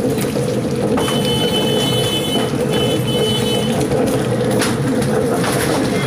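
Wet grinder running: a black grinding stone rolls in a stainless steel drum against a fixed scraper, grinding batter with a steady, even hum.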